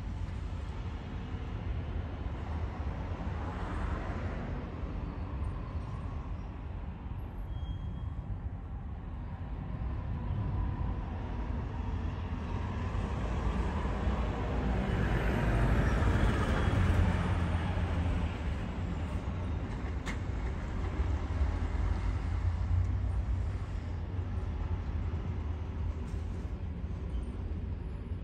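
Outdoor waterfront ambience: a steady low rumble under a wash of noise. The noise swells briefly a few seconds in, then again more strongly past the middle before settling back.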